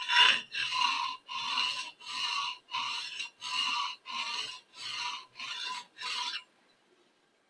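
Steel blade of a Kirschen 6mm mortise chisel rubbed back and forth on a 1000-grit diamond sharpening stone, about two strokes a second, grinding a primary bevel and stripping the factory lacquer from the blade. The strokes stop about a second before the end.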